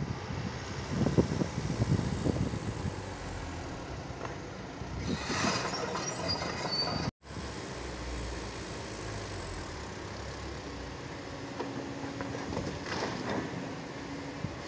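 Heavy diesel truck and machinery engines running, a steady rumble. About five seconds in comes a brief hiss with a high squeal, and the sound cuts out for a moment about seven seconds in.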